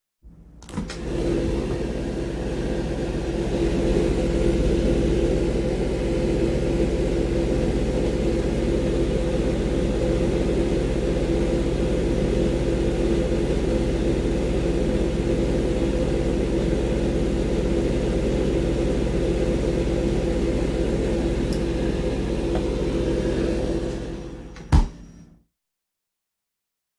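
Meat locker ambience: the steady low hum and drone of refrigeration machinery, with a rumble underneath. Near the end it fades and a single sharp clunk sounds, after which it cuts out.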